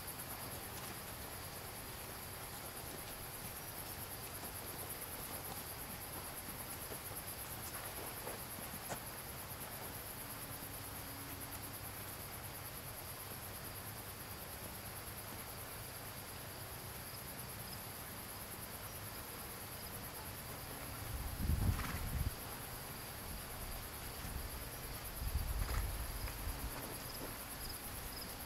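Steady high-pitched trilling of crickets in a summer field chorus, with a second, lower pulsing insect call beneath it. Two brief low rumbles break in about three-quarters of the way through and again near the end.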